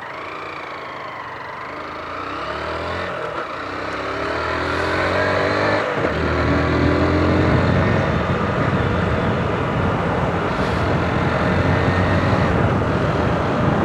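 150 cc motorcycle accelerating, its engine pitch rising and falling back twice as it shifts up through the gears, then running steadily at speed. Heavy wind rush on the microphone.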